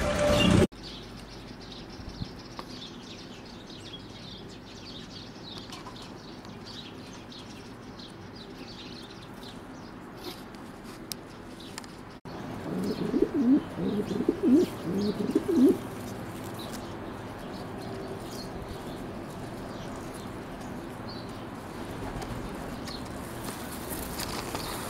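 Blondinette fancy pigeon cooing in a run of deep, gliding coos lasting a few seconds, starting about halfway through. Before that, faint high chirps can be heard in the background.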